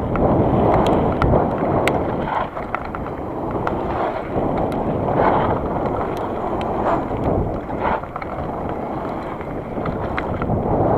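Wind buffeting the microphone, a rough, uneven rumble that swells and eases every second or two, with scattered light clicks.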